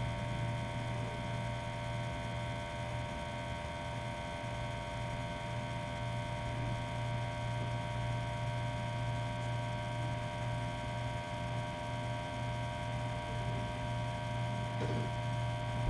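Steady electrical hum with a cluster of fainter, higher steady whining tones above it, unchanging throughout.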